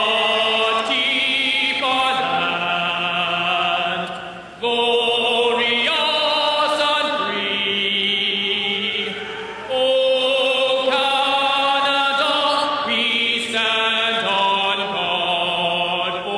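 A male singer singing a national anthem in long held notes, with short breaks between phrases about four and a half seconds in and again near ten seconds in. An arena crowd sings along.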